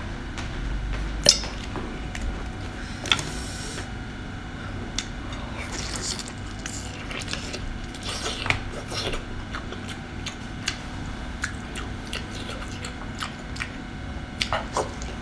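Close-up eating sounds of whole braised baby octopus: wet lips smacking, chewing and squishing of the soft flesh, with scattered sharp clicks.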